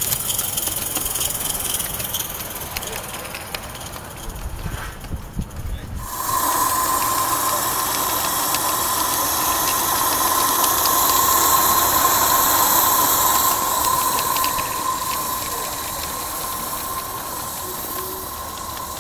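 Live-steam garden-railway locomotive running with a light rattling and clicking. About six seconds in, a loud steady hiss of steam with a whistle-like tone starts suddenly and keeps going.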